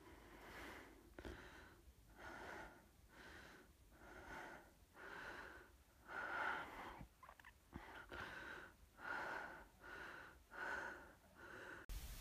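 A person breathing hard and rhythmically from mountain running, a rough rushing breath a bit less than once a second.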